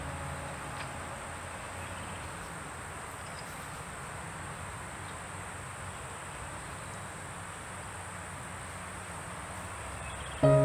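Steady outdoor ambience with a continuous high-pitched drone of insects over a soft hiss. A piano note fades out at the start, and music comes back in just before the end.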